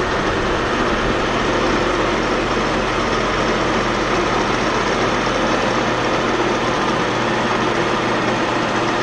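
Grizzly G4003 metal lathe running steadily, a constant motor and gear drone with a low hum underneath.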